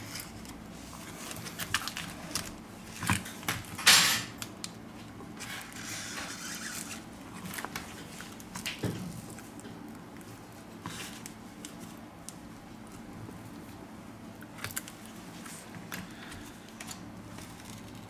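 Plastic card scraping and clicking as it is worked along the edge of a Samsung Galaxy A70's glued back cover, cutting the adhesive to free the cover. Irregular small clicks and scrapes, with one louder, longer scrape about four seconds in.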